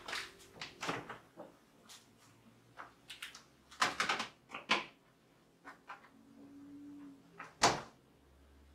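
Scattered light clicks and knocks of things being handled in an open refrigerator, with one louder thump near the end, like the fridge door shutting.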